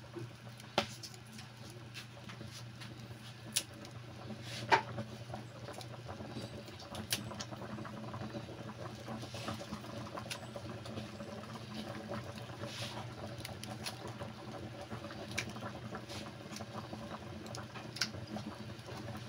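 Pork sinigang broth at a rolling boil in a pot, bubbles popping in irregular small clicks and pops over a low steady hum.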